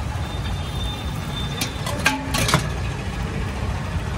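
A metal spatula clicks and scrapes a few times against a hot dosa griddle around the middle, over a steady low rumble.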